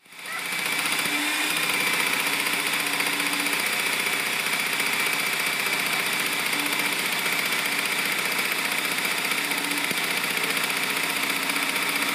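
Drill-driven nibbler mounted under a table, running steadily with a fast, even mechanical rattle as its punch nibbles through the sheet being fed into it.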